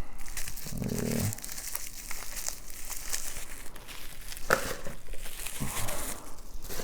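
Packaging crinkling and rustling as a lock is handled and unwrapped, with irregular small crackles and clicks.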